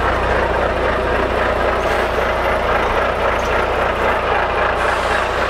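Poultry transport truck's engine idling steadily, a constant low hum with a dense mechanical noise over it.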